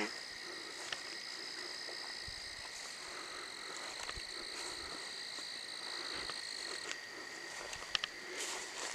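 Night chorus of frogs and insects trilling steadily at several high pitches; one of the trills stops about seven seconds in. A few soft clicks near the end.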